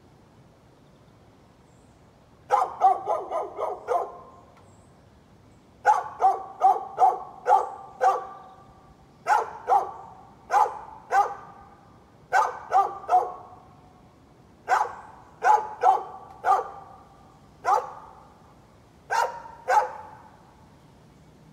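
A dog barking repeatedly. A quick run of about six barks comes a couple of seconds in, then groups of two to four barks with short pauses.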